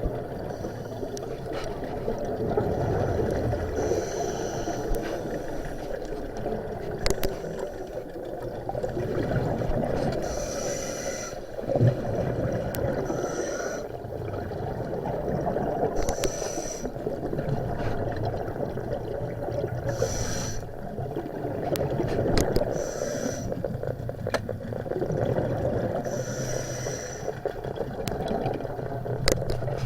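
Muffled rushing water with a short hiss every three to four seconds and scattered sharp clicks.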